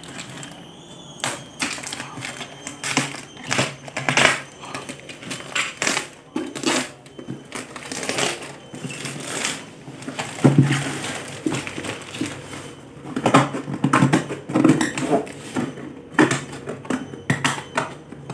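Clear plastic stretch wrap crinkling and tearing as it is slit with a utility knife and peeled off a cardboard box, in irregular crackles and rustles.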